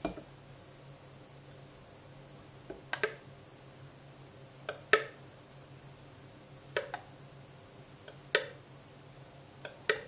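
Spoon, plastic food processor bowl and glass jar clinking and knocking together while thick peanut butter is scraped from the bowl into the jar: about six sharp knocks a second or two apart, the loudest about five seconds in, over a low steady hum.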